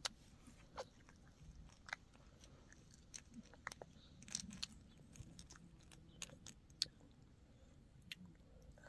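A small child chewing and biting a snack: faint, scattered crunches and mouth clicks, about one every half second or so, over an otherwise quiet room.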